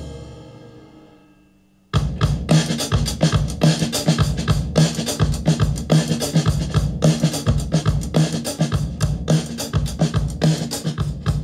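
A recorded drum beat played through an EMI TG12345 MK II mixing desk and compressed by it. The last hits ring away at first, then about two seconds in the beat starts again and runs on in fast, dense hits with a heavy low end.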